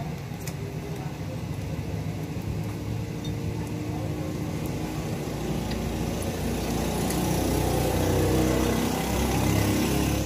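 Hair dryer running: a steady rush of air over a low motor hum, louder in the second half.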